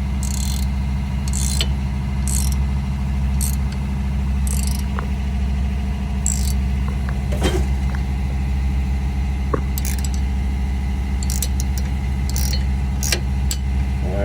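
Adjustable wrench cranking the nut on a bolt-and-nut hub press, with short metallic scraping strokes about once a second, then in quicker clusters near the end, as the press forces a seized wheel hub out of the steering knuckle. A steady low drone runs underneath.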